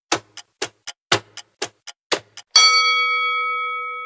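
Countdown-timer clock ticking, a loud tick every half second with a softer tick after each, then about two and a half seconds in a bright bell chime that rings on and slowly fades, signalling the end of the countdown and the answer reveal.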